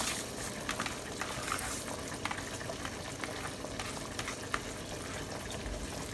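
Pot of Chinese cabbage soup boiling on the stove: a steady bubbling hiss with scattered light clicks.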